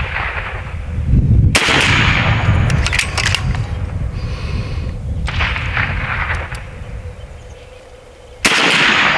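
AEA Challenger Pro .30 caliber regulated side-lever PCP air rifle firing three shots, about 1.5, 5.3 and 8.5 seconds in. Each crack trails off over a second or two, with a few sharp metallic clicks between the first two shots.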